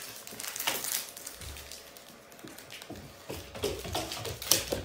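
A husky's claws clicking and tapping on a hardwood floor as it runs, the taps coming quicker and louder near the end.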